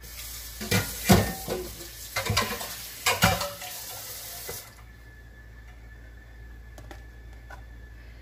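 Water running with pots and utensils clattering, several sharp knocks over the hiss; the water stops suddenly about four and a half seconds in.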